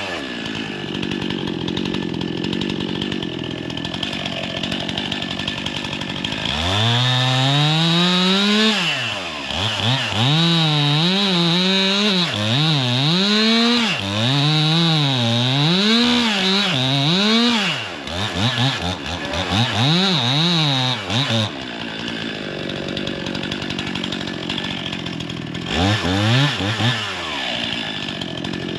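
Two-stroke chainsaw idling, then revved up and down over and over for about fifteen seconds, its pitch rising and falling with the throttle, before dropping back to idle. There is a short pair of revs near the end.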